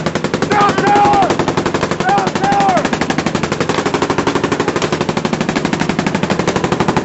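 Sustained automatic gunfire from machine guns, an unbroken rapid stream of shots at about ten a second.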